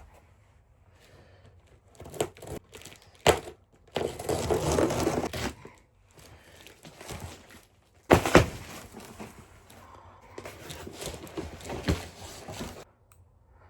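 Unboxing packaging being handled: rustling and crinkling of wrapping, with a longer stretch of rustling about four seconds in and scattered knocks of items being set down, the sharpest about three and eight seconds in.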